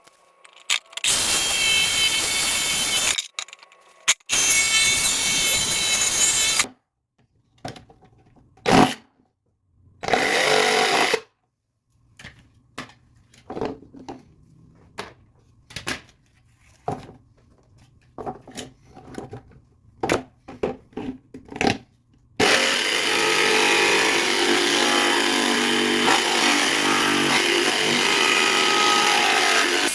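Handheld power tool cutting into the plastic Gamma lid ring to open the airflow hole. It runs in three bursts of a few seconds each, with knocks and handling noises between, then one long run near the end.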